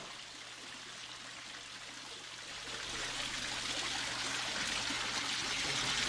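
Water splashing and trickling steadily down an artificial garden waterfall into its pool, growing louder about halfway through.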